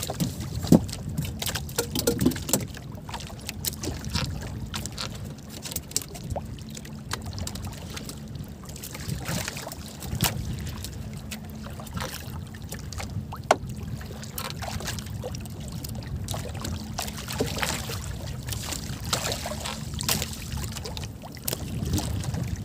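Wind and sea water around a small outrigger fishing boat, a steady low rumbling hiss, with scattered sharp clicks and taps from hands working a handline and baiting the hook.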